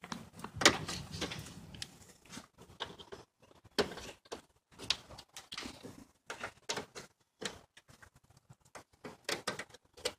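Irregular clicks, snaps and light knocks of hard plastic as the upper grille cover's push-pin clips are pried loose with pliers, the loudest about a second in.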